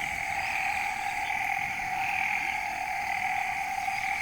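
Steady, unbroken chorus of calling frogs.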